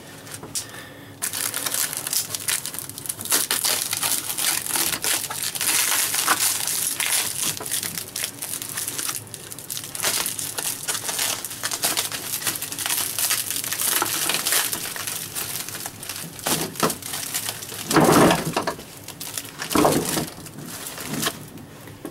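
Packaging material crinkling and rustling as it is handled, with many small crackles, followed by a couple of louder knocks near the end.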